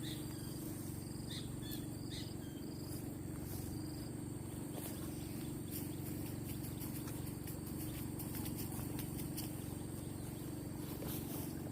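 Steady rush of a fast-flowing river under a continuous high shrill of insects, with a few short chirps near the start.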